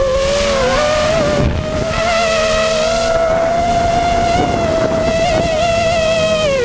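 Whine of a 5-inch racing quadcopter's four 2600 kV brushless motors and propellers, heard from the camera on board. The pitch climbs back up within the first second, holds fairly steady with small wavers as the throttle shifts, then drops sharply near the end as the throttle comes off. A rough low rumble of wind on the microphone runs underneath.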